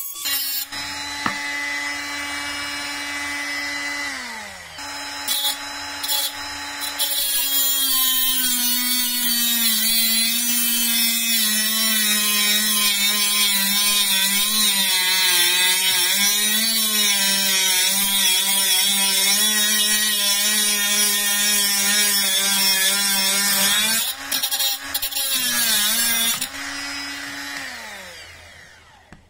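Parkside PWSA 12 B1 12 V cordless mini angle grinder with a 76 mm cut-off disc cutting through M10 steel threaded rod. The motor whine sags and wavers in pitch under load over a harsh hiss of disc grinding steel. The motor winds down about four seconds in, then cuts steadily for most of the time, breaks off a few times, and spins down near the end as the rod parts.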